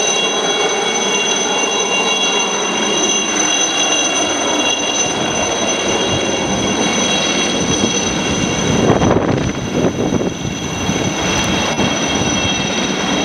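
Aérospatiale SA 315B Lama helicopter with its Turbomeca Artouste turboshaft running at flight power as it flies off with a slung Bambi bucket: a steady high turbine whine over loud rotor noise, swelling briefly about nine seconds in.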